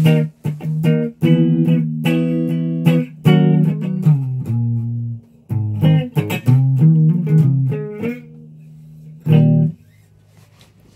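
Electric guitar with two humbucker pickups played as picked single notes and short melodic runs, some notes left to ring out. The playing stops near the end.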